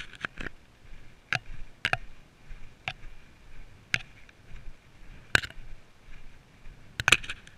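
Trekking poles clicking with each stride: sharp, uneven clicks about once a second, each with a short ring.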